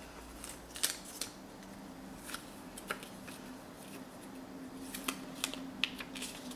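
Light paper and plastic rustling with scattered soft ticks as a folded paper note is pulled from a clear plastic card holder and unfolded.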